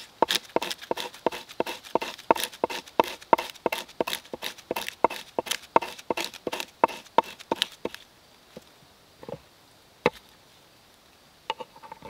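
Knife blade scraping birch bark on a wooden board, shaving tinder, in regular strokes about three a second for some eight seconds, then a few scattered strokes. Near the end quicker scrapes begin as a ferro rod is struck into the shavings.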